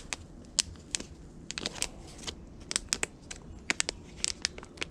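Plastic being handled, most likely the packaging of a replacement LCD display: irregular sharp clicks and light crinkling, a dozen or so ticks scattered through the few seconds.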